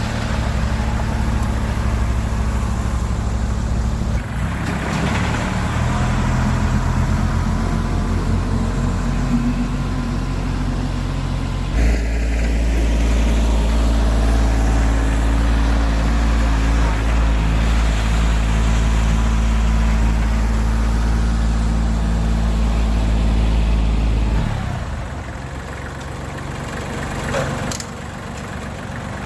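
Kubota compact tractor's diesel engine running while grading gravel with a box blade. The engine note shifts about four seconds in, grows louder and deeper about twelve seconds in, and falls quieter near the end.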